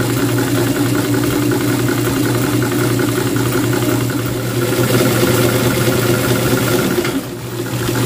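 Domestic zigzag sewing machine running steadily at speed, stitching a dense zigzag satin stitch. The hum drops away about seven seconds in.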